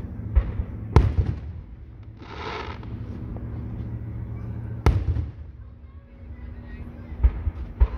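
Aerial firework shells bursting overhead: a loud boom about a second in and another near five seconds, with smaller thuds at the start and near the end. There is a brief hiss between the two booms.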